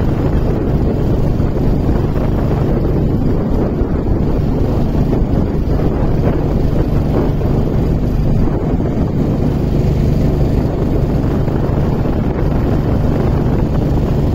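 Wind buffeting the microphone while riding a motorcycle at steady speed on a paved road, with the engine's even hum underneath.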